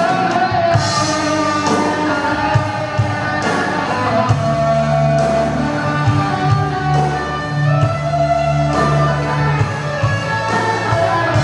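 A live rock band playing, with a drum kit, electric guitars and a bass, and a man singing the melody into a microphone.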